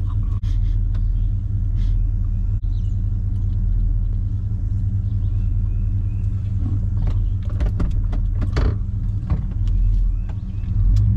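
Steady low engine and road rumble of a Chevy Suburban, heard from inside the cabin, with a few light clicks and knocks around the middle.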